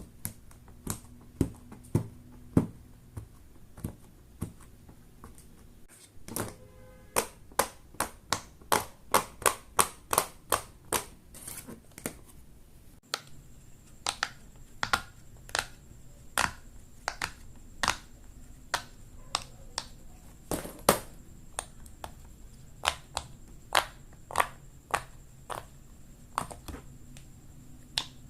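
Silicone pop-it fidget toy bubbles being pressed one after another, a steady run of sharp pops at about two to three a second, with brief breaks about six and thirteen seconds in.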